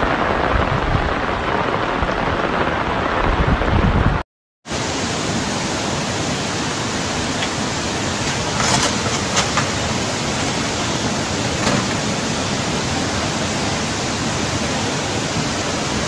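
Muddy floodwater rushing through a street with rain falling, a steady, dense water noise. It drops out for a moment about four seconds in, then a torrent of floodwater rushes on steadily, with a few faint knocks.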